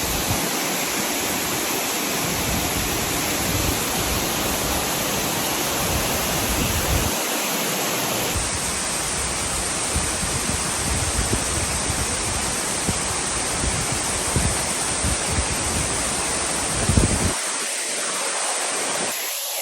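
Waterfall in heavy flow: a steady rush of falling water, with a low rumble underneath that drops away near the end. The falls are raging, swollen with water.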